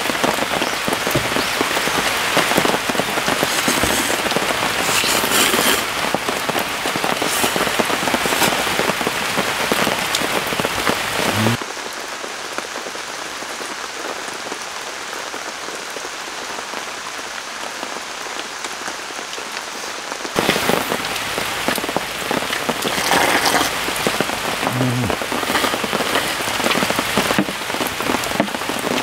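Heavy rain pouring steadily in a dense, unbroken hiss, softer for about nine seconds in the middle.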